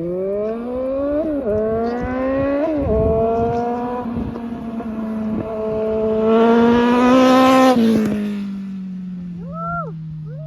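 Suzuki Bandit 1250's inline-four engine under hard acceleration: the revs climb, drop briefly twice about a second and a half apart as it shifts up, keep rising and peak loudest around seven seconds in, then fall away as the throttle closes. Two short high chirps sound near the end.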